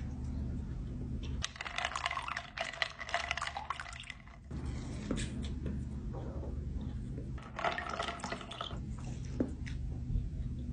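Close-miked wet eating sounds: giant cookies soaked in milk being bitten and chewed, squelching and dripping. The sounds come in two bouts, about a second and a half in and again near eight seconds, over a steady low hum.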